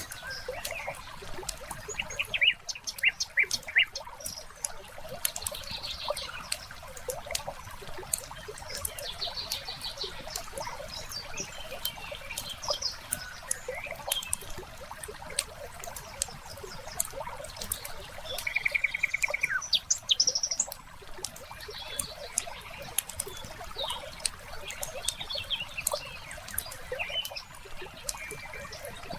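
Wood fire crackling with frequent sharp pops, while small birds chirp outside, with one rapid trill about two-thirds of the way through.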